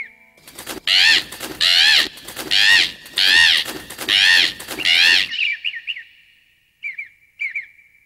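Cartoon parrot squawking loudly about six times in a row, each call rising and falling, over a rush of flapping wings. Short two-note bird chirps come before and after.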